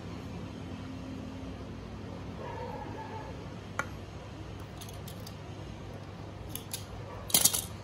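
Utility knife cutting and trimming a synthetic-leather (vinyl) covering at the corner of a speaker box. There is a sharp click partway through, a few faint ticks, and a short, louder slicing rasp near the end, all over a steady low hum.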